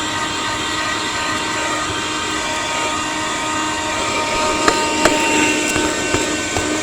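Cheap handheld portable vacuum cleaner running steadily, its small motor giving a whine of several steady tones over the rush of air, with a couple of sharp clicks about five seconds in. The owner calls it not very powerful.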